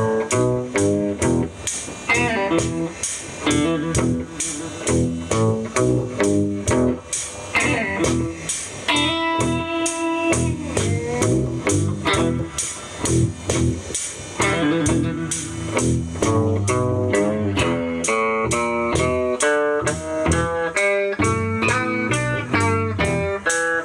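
Live blues band music: electric guitar playing blues phrases over a steady beat, with a few notes held about nine seconds in.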